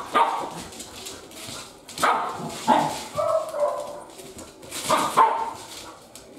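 Two huskies, an adult and a puppy, play-fighting: short barks and yips in bursts every second or so, with a brief whining call about three seconds in.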